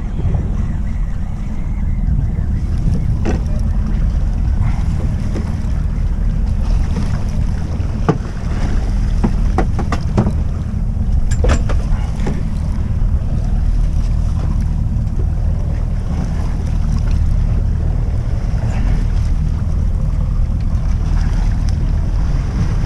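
Twin Evinrude outboard motors running steadily, a constant low rumble, with wind noise on the microphone over it. A few brief sharp clicks or knocks stand out now and then.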